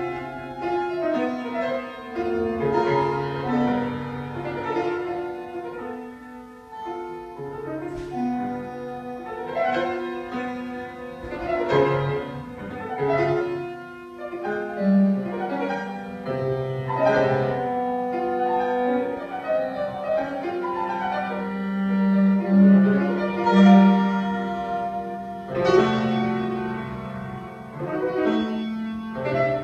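Contemporary music for grand piano and electronics: struck piano notes and chords over long, steady electronic tones.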